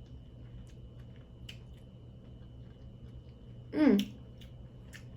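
Someone eating crawfish and crab: faint chewing and scattered small clicks. There is a short voiced sound with falling pitch about four seconds in, over a faint steady hum.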